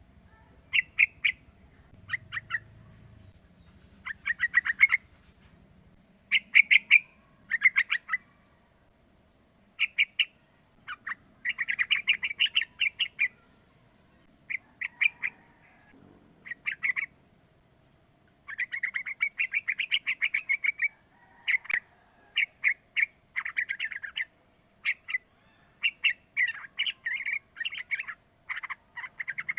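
A young yellow-vented bulbul (trucukan) calling: short bursts of quick bubbling, chattering notes, repeated again and again with brief pauses between them. A faint steady hum lies underneath.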